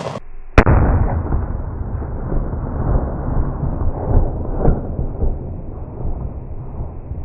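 A single gunshot from a Smith & Wesson Model 500 revolver firing a hot .500 S&W Magnum load, one-handed: one sharp, very loud crack about half a second in. A low rumble follows and carries on for several seconds.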